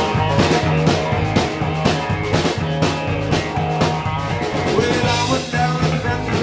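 Live rock band playing an instrumental passage: electric bass, electric guitar and drum kit keeping a steady beat.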